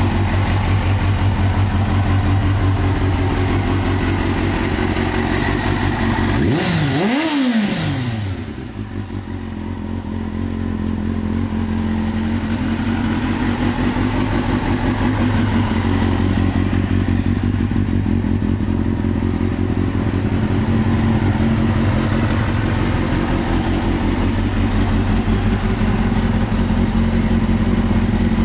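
Kawasaki ZX-6R's inline four-cylinder engine idling steadily, with one quick rev blip about seven seconds in.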